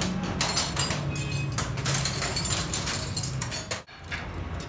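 Rapid clinking and clattering of metal parts and tools being handled during a diesel injection pump repair, over a steady low machine hum. The sound breaks off abruptly near the end, and a lower hum carries on.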